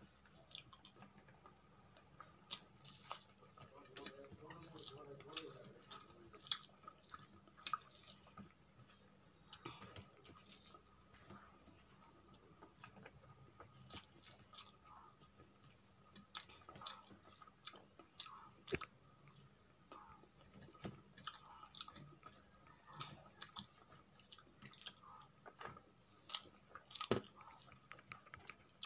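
Soft close-up chewing and mouth clicks of someone eating rice and small arbi (taro) curry by hand. Short wet clicks and smacks come irregularly throughout.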